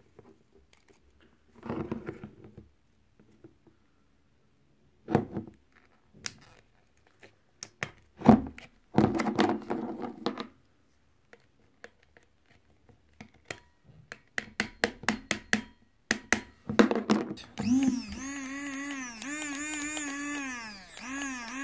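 Plastic clicks and knocks as the hand blender's parts are fitted back together. Then, late on, the repaired Arzum Prostick 1500 hand blender's motor starts and runs with a whine whose pitch dips and recovers several times.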